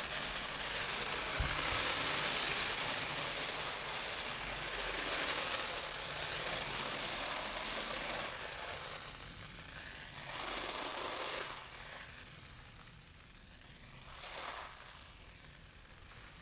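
A thin stream of rice grains pouring from a hanging cone onto a drum head, a dense hiss of grains striking the skin that is loudest in the first half, swells twice more around ten and fourteen seconds in, and then dies down. A brief low thump about a second in.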